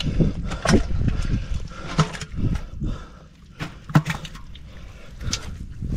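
Water splashing and dripping, with irregular knocks against the small boat, as a fishing net is hauled up out of the water.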